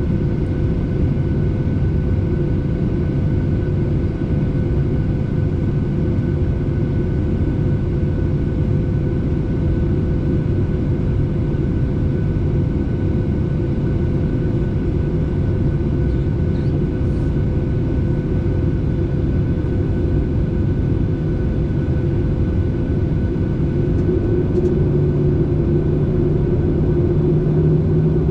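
Airliner cabin noise before takeoff: the steady drone and rumble of the engines, with a couple of constant whining tones, growing a little louder near the end.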